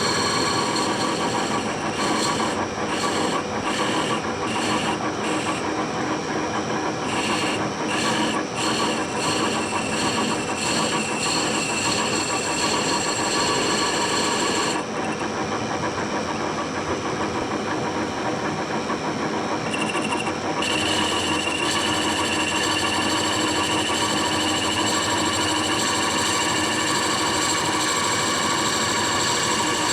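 Metal lathe running while a wood-and-epoxy bowl blank is turned, a steady machine hum with scraping noise from the cutting. The high-pitched scraping cuts in and out repeatedly in the first half, drops away for a few seconds in the middle, then returns steadily with a thin high whine.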